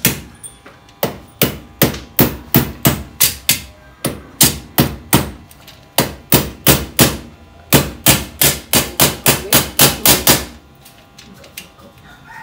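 Hammer striking repeatedly while a curtain track is fixed along the top of a window frame. The blows come steadily at two to three a second, quicken a little near the end, and stop about ten and a half seconds in.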